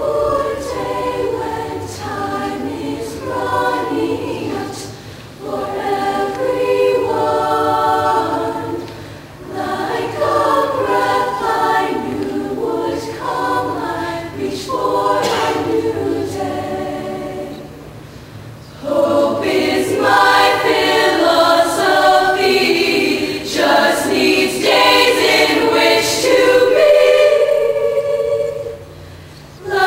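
High school show choir singing a cappella in phrases with short breaks between them, growing louder about two-thirds of the way through.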